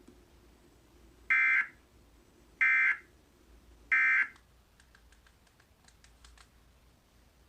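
Emergency Alert System end-of-message signal: three short SAME digital data bursts, evenly spaced about 1.3 seconds apart, marking the end of the warning broadcast. Faint clicks follow about five seconds in.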